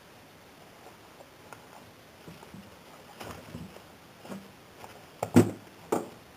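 Handling noise from plush teddy bears being shifted by a gloved hand in a cardboard box: soft rustles and light taps, then near the end two louder dull knocks about half a second apart.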